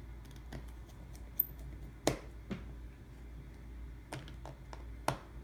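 Scattered small clicks and taps of a precision screwdriver and metal parts working on an iPhone 6's internal screws, the loudest about two seconds in, over a low hum.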